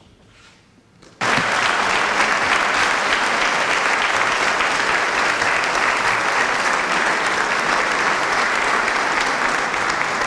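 Theatre audience applauding, breaking in suddenly about a second in and keeping up steadily.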